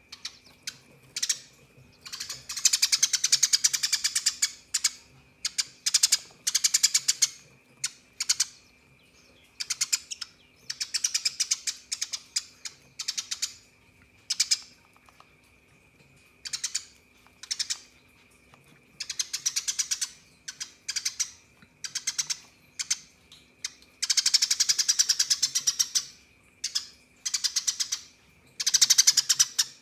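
Eurasian tree sparrows chattering in fast, rattling bursts, mostly half a second to two seconds long with a few longer runs: the agitated calls of sparrows fighting.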